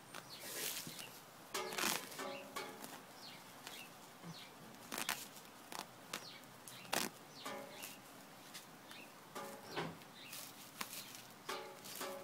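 Feathers being torn out by hand from a freshly killed hen: irregular short rustling rips, a few every couple of seconds.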